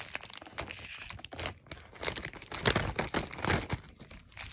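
Plastic candy bags crinkling and rustling in irregular crackles as candies are taken out of them by hand.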